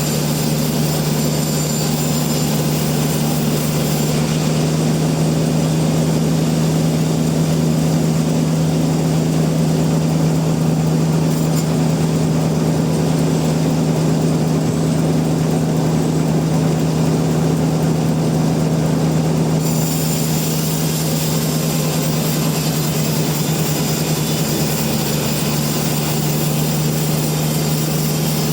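Sawmill machinery running steadily with a constant low hum and a hiss above it. The hiss thins out for about fifteen seconds in the middle, then comes back.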